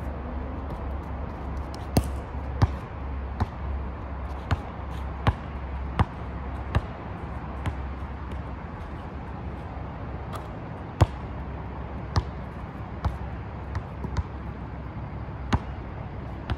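Basketball bouncing on an asphalt court as it is dribbled, in sharp, irregular thumps about a second apart, the loudest about eleven seconds in, over a steady low rumble.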